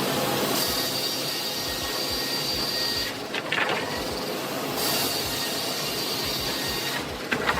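Sawmill saw cutting through a log: a steady mechanical whine with a high tone that drops out about three seconds in, with a few knocks in the gap, then returns. More knocks come near the end.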